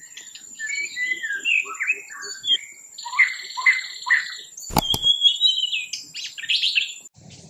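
Birds chirping and calling in quick, varied whistled phrases, over a thin steady high tone. A sharp hit comes a little before five seconds in, and all of it cuts off suddenly shortly before the end.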